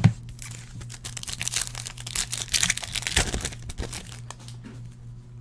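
Foil wrapper of a Bowman Chrome football card pack crinkling and tearing as it is ripped open and handled, after a sharp tap at the very start. The crinkling runs for about three and a half seconds and then dies away.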